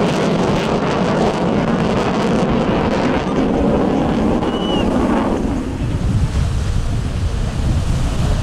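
Jet noise from the F-35C's single F135 afterburning turbofan as the fighter pulls a tight high-g turn. About five and a half seconds in, the broad roar gives way to a deeper rumble.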